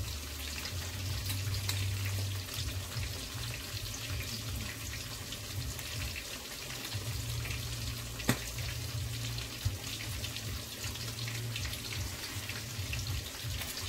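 Chicken frying in a deep pot of oil, a steady sizzle, over a low hum, with one sharp click about eight seconds in.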